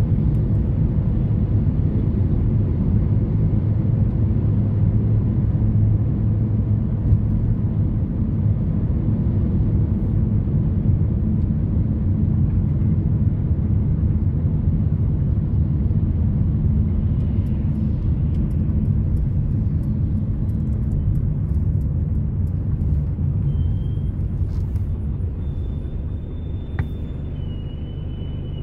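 Steady low rumble of a car's engine and tyres heard from inside the cabin while driving, easing off near the end as the car slows in traffic.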